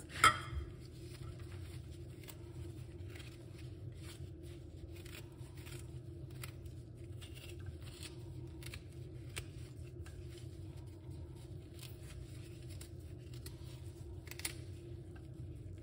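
Spoon scraping the skin off fresh ginger root in short, faint, scratchy strokes. A sharp knock comes just after the start, and a smaller one near the end.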